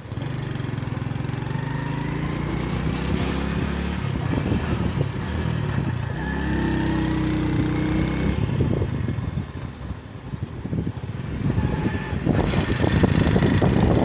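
Small motorcycle engine running while being ridden, its pitch rising briefly about six seconds in. A louder rushing noise joins in near the end.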